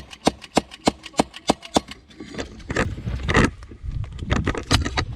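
Airsoft gun firing rapid semi-automatic shots, sharp snaps about three a second for the first two seconds, followed by scattered shots and rustling movement.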